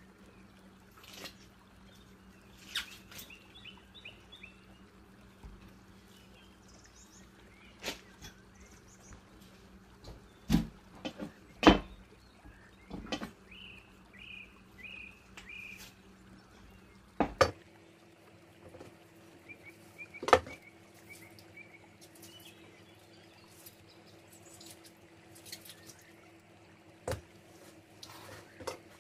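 A raw chicken leg being handled and trimmed by hand: soft wet squelching and dripping, with a few sharp knocks, over a low steady hum that shifts up in pitch a little past halfway.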